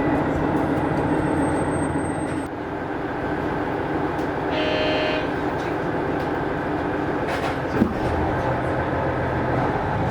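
Diesel railcar running along the line, heard from inside the passenger cabin: a steady rumble of engine and wheels on rail. A brief pitched tone sounds for about a second halfway through.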